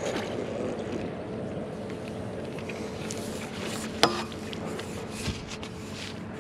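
A steady low hum with one sharp knock about four seconds in.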